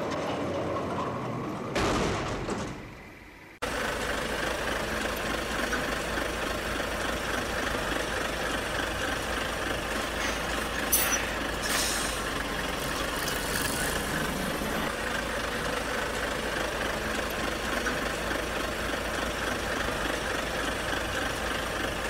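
A sudden hit about two seconds in as transition doors swing shut, fading over about two seconds and then cut off. After that a steady idling diesel truck, with short air-brake hisses around eleven and twelve seconds in.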